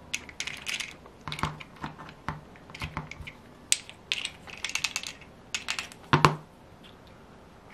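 Light taps, clicks and small metallic rattles from a Magnum FS30 model engine's aluminium crankcase being handled and tapped to work its internal parts loose, with a louder knock about six seconds in.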